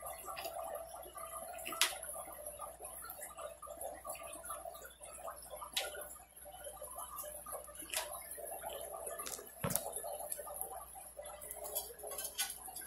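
Grey squirrel's claws clicking and scratching irregularly on grapevine branches, a sharp tick every second or two, over a steady hum from the fish-room equipment.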